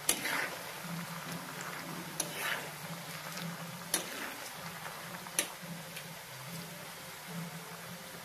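Banana slices deep-frying in coconut oil in a kadai: a steady sizzle of bubbling oil. About five sharp metal clinks come through it as a slotted frying spoon stirs the chips and knocks against the pan.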